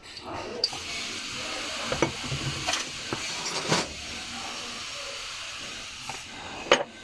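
Steady hiss of a spray or air jet on starter motor parts during cleaning. It starts abruptly about half a second in and stops shortly before the end, with a few light clicks of metal parts over it.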